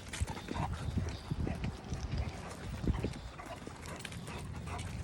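Cane Corso moving about: irregular footsteps, with taps and soft low thumps.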